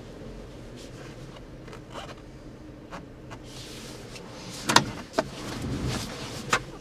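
Handling noise in a vehicle cabin: a few light clicks, then rustling and three sharp knocks in the second half, the first knock the loudest.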